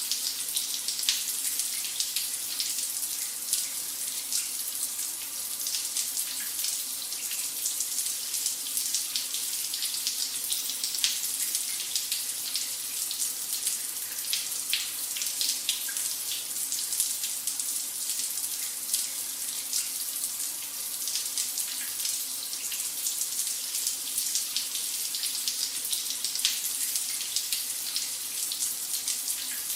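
A shower running: a steady hiss of spray with many small spatters of water striking a surface.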